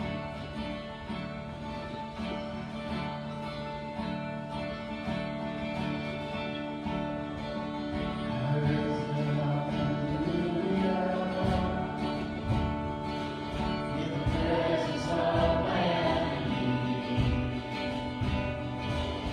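Live church worship band playing a song: acoustic guitar strumming over keyboard chords, with voices singing from about halfway through and the music growing louder and fuller near the end.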